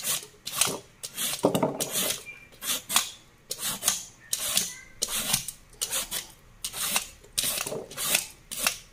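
Vegetable peeler scraping the skin off a ridged oyong (angled luffa) gourd, in repeated rasping strokes at about two a second.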